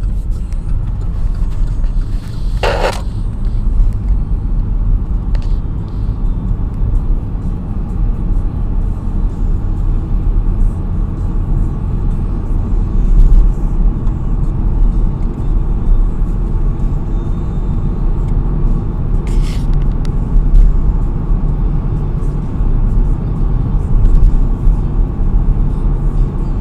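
Steady low rumble of a car's engine and tyres on a wet road, heard from inside the moving car, with a short hiss about three seconds in and another around nineteen seconds in.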